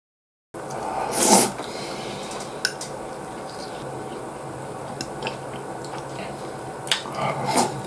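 A person eating with a metal spoon: a loud noisy mouthful about a second in and another near the end, with a few sharp clicks of the spoon against the dish in between, over a steady low hum in the room.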